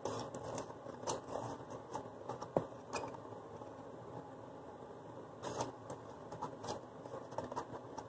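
Small clicks, scrapes and taps of plastic measuring spoons dipping into a tub of baking powder and knocking against a plastic mixing bowl, in two runs with a quieter gap between them and one sharper tap about two and a half seconds in. A faint steady hum underneath.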